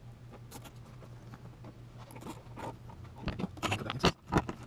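Plastic zip tie being handled and pulled tight around a wiring harness: light scraping and ticking of the strap, then a quick run of ratchet clicks and two sharp louder clicks about four seconds in.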